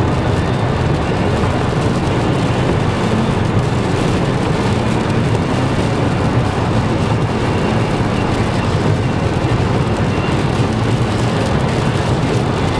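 Steady road noise heard inside a car driving at motorway speed in torrential rain: tyres rushing over the soaked surface, with the engine running.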